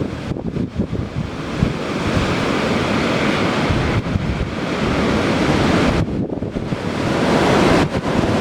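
Strong, gusty wind buffeting the microphone: a loud, rushing noise with heavy low buffeting. It eases briefly about six seconds in, then swells again near the end.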